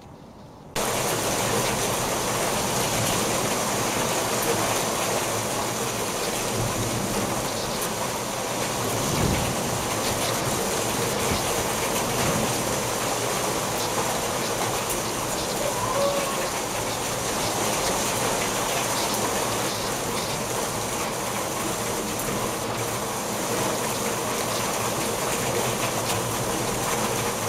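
Heavy thunderstorm downpour: rain pouring down in a steady, loud rush that starts abruptly about a second in. There is a brief low thud about nine seconds in.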